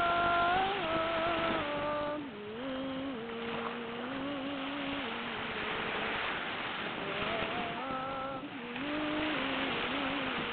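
A single voice humming a slow wordless melody in long held notes that step up and down, over a steady rushing hiss.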